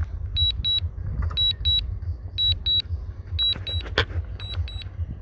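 DJI drone app warning alert: short high double beeps repeating about once a second, the low-battery landing warning, over a low rumble, with a sharp knock about four seconds in.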